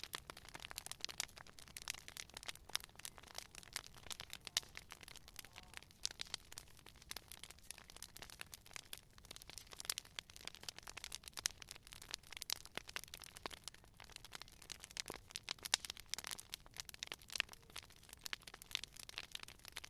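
Wood campfire crackling: a steady stream of small irregular pops and snaps, with a few louder cracks here and there.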